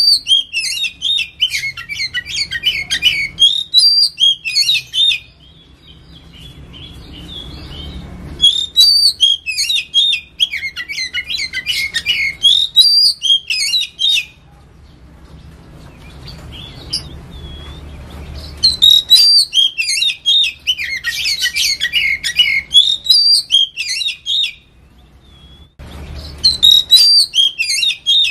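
Oriental magpie-robin singing long bouts of rapid, varied high notes, broken by pauses of a few seconds between bouts.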